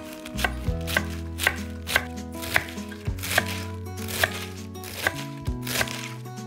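Chef's knife chopping Napa cabbage on an end-grain wooden cutting board: a crisp cut through the leaves and a knock of the blade on the wood, about twice a second.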